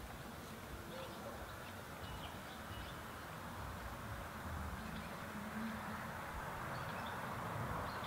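Outdoor ambience: a steady hiss and low rumble that grow a little louder toward the end, with a few faint, short bird chirps scattered through.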